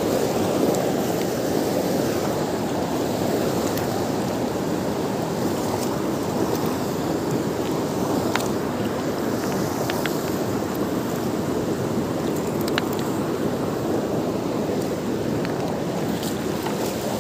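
Swift river water rushing steadily, with a few faint clicks.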